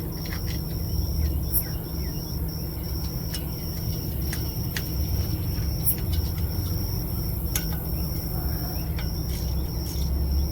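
Scattered light clicks and taps of small parts and wiring being handled during diesel heater reassembly, over a steady low hum and a continuous high chirring of crickets.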